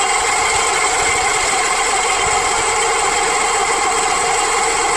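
Car engine idling with its belt-driven accessories running, a steady noise with a whine over it. The noise comes from a bad alternator that no longer charges, which the owner takes for a broken bearing letting the rotor run off centre and rub the housing.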